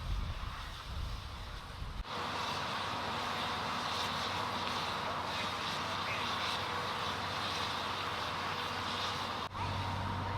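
Fire apparatus engines running steadily, a constant hum with hiss over it. The first two seconds are a low rumble, and the sound cuts abruptly to the steady engine noise about two seconds in and again near the end.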